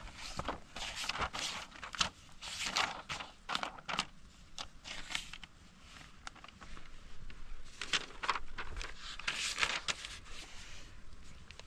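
Paper pages and a schoolbag rustling and crinkling as schoolbooks are handled and leafed through, in a string of short bursts with a quieter pause around the middle.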